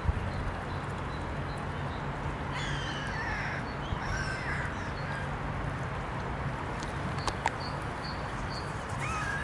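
Birds at a pond giving a few short, harsh calls, clustered about two and a half to four seconds in and again briefly near the end. Two sharp clicks come between them, over a steady low rumble.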